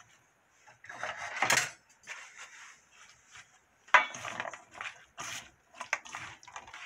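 Wooden spatula stirring a mayonnaise-dressed corn and vegetable salad in a stainless steel mixing bowl: irregular scrapes and knocks of wood on metal, the loudest about a second and a half and about four seconds in.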